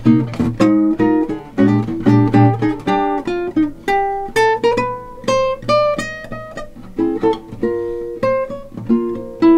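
Solo eight-string classical guitar played fingerstyle: plucked chords over low bass notes, with a single-note melody line that climbs in the middle of the passage, in a jazz ballad arrangement.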